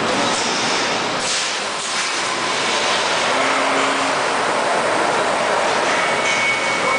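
Steady din of car-body welding line machinery, with a short hiss of air about a second in and a faint steady tone near the end.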